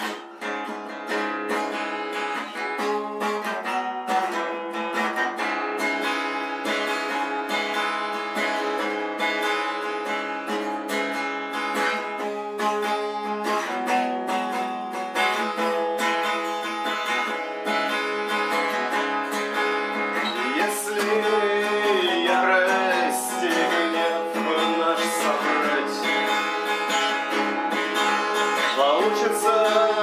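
Song music led by acoustic guitar, strummed and plucked, with a wavering melody line joining about twenty seconds in.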